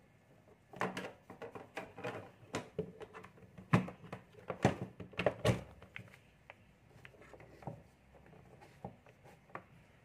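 Handling noise as a mains cord and wires are moved about on a sheet of paper on a table: rustling and a string of light clicks and taps, with three sharper knocks near the middle, then only faint scattered taps.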